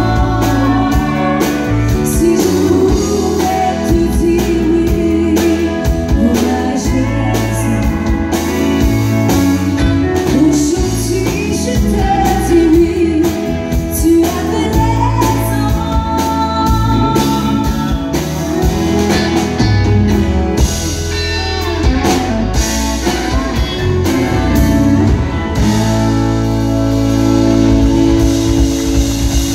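Live country song: a woman singing through the PA while strumming an acoustic guitar, with a band's bass and drums behind her.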